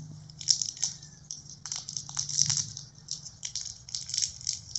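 Small, irregular clicks and rattles of a smartwatch's plastic magnetic charger being handled and turned over in the fingers.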